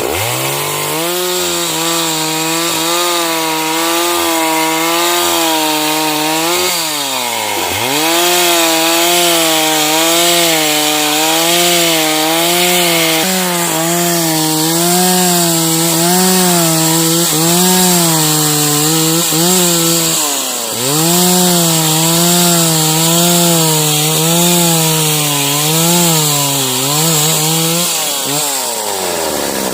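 Stihl MS 381 two-stroke chainsaw running at high revs while cutting sengon wood. The engine pitch wavers as the chain bites, and the revs dip and pick up again a few times, about a quarter and two-thirds of the way through.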